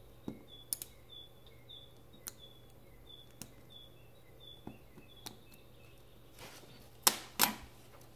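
Small clicks and ticks as tiny parts are pressed out of a thin laser-cut model-kit sheet with a pointed tool, with two sharper snaps less than half a second apart about seven seconds in. A faint high chirp repeats about twice a second in the background over the first five seconds.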